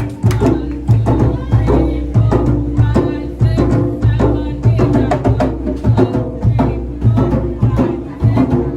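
Drum-led folk music: a steady beat of low drum strokes with sharp wooden clicks over it.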